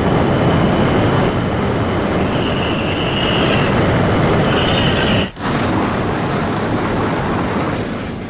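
High-speed Shinkansen train pulling slowly into a covered station platform: a steady rolling rumble, with a high whine that comes and goes. The sound breaks off abruptly a little over five seconds in and carries on as similar steady train noise.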